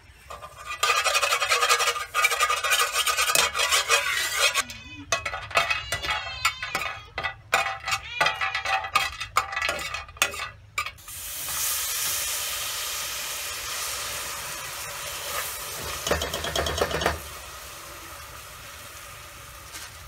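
Hot oil sizzling and crackling in a stainless-steel pot as star anise is fried, with a metal ladle stirring and scraping against the pot in irregular strokes. From about eleven seconds in the sound becomes a steadier sizzling hiss as the mixture bubbles, easing off near the end.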